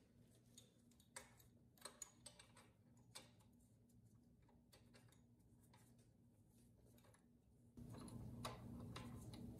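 Faint light clicks and taps of hand work on a small generator's alternator end housing and wiring, a handful in the first three seconds, then near quiet. A low steady hum comes up near the end.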